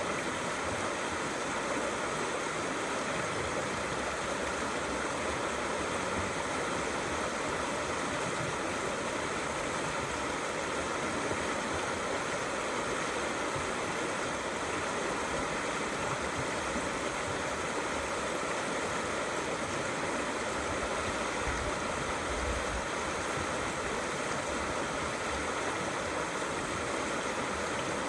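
Small river flowing steadily, a continuous even rushing and gurgling of water.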